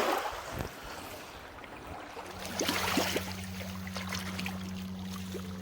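Lake water splashing and lapping in the shallows, with a few sharp splashes. About two seconds in, a low steady drone begins and holds, with higher tones joining near the end: the start of background music.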